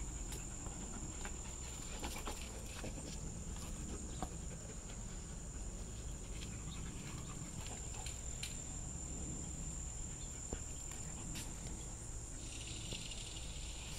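Steady high-pitched insect trill, with faint scattered clicks; a softer hiss joins near the end.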